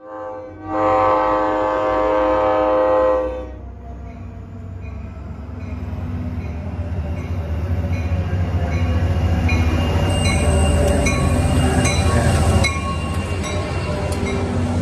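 Train horn sounding one chord-like blast of about three seconds, then a train's steady low rumble that builds louder, with a faint clicking about twice a second, easing off about 12.5 seconds in.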